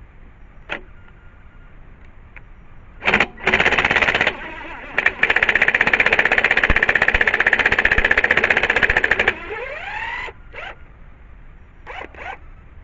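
Impact wrench with a 21 mm socket hammering a wheel's lug nut loose: a short burst about three seconds in, then about four seconds of continuous rapid hammering, with the motor whine falling away as it stops.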